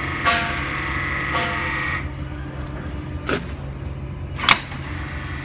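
Hydraulic pump unit powering a rebar coupler press, running with a steady drone and a higher whine that drops out about two seconds in. Two sharp metallic clicks follow, the second louder.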